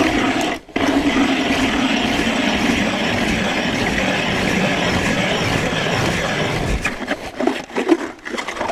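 Hand ice auger drilling through lake ice: the blades give a steady grinding scrape, broken briefly about half a second in. Near the end the scraping stops and gives way to a few separate knocks.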